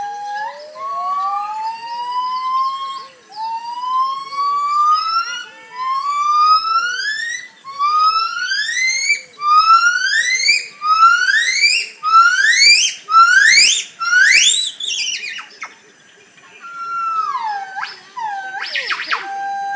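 Gabriella's crested gibbons calling: a series of loud whistled notes, each sliding upward in pitch, coming faster and climbing higher as the sequence builds. After a brief pause come a few falling whistled notes and a quick flurry of notes near the end.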